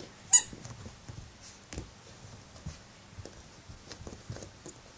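A red rubber squeaky bone toy gives one short, sharp squeak near the start as a puppy chews it, followed by scattered soft knocks and clicks from her chewing and pawing the toy.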